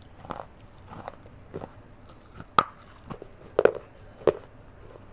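Close-miked biting and chewing of pieces of a fired clay pot (matka): a run of crisp, sharp crunches about every half second, the loudest ones in the middle and later part.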